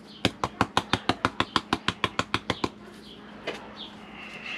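A spice container shaken hard over the marinade bowl: a quick, even run of sharp clicking rattles, about six a second, lasting about two and a half seconds, then one more click.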